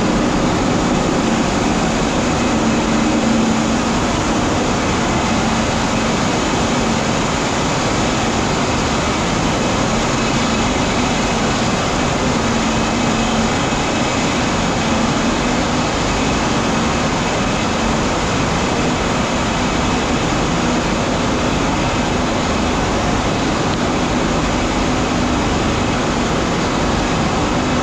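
Tea-processing machinery running steadily: motors, a large rotating drum and conveyor belts carrying cut green tea leaf, a loud even mechanical din with a constant low hum.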